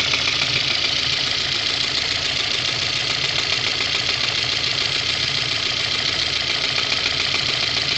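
VAZ 2109's four-cylinder engine running steadily, with a small knock coming now and then that the owner cannot identify. Regrinding around the camshaft bearings has not cured it.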